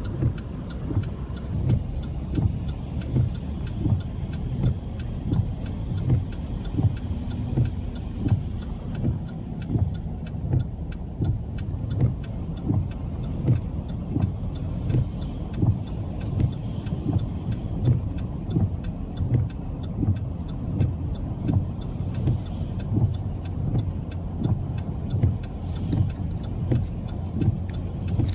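Car running steadily, with a regular low thump repeating about three times every two seconds.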